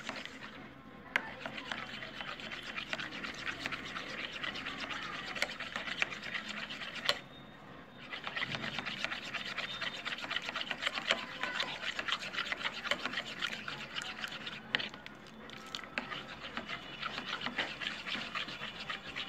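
Red plastic spoon stirring a thickening white phenyl mixture in a small white bowl, rubbing and scraping quickly and continuously against the bowl, with a short pause about seven seconds in.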